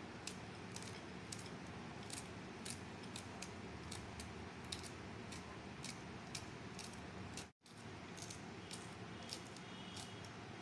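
A small kitchen knife slicing a green chilli held in the hand, cutting it into rings with about two crisp clicks a second, over a steady low hum.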